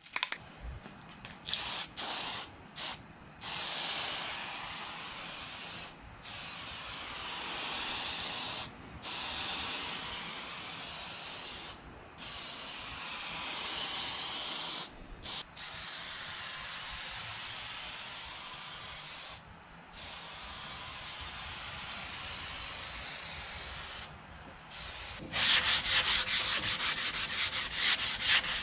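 Sanding, in stretches of a few seconds broken by short pauses. Near the end it turns into louder, faster rasping strokes.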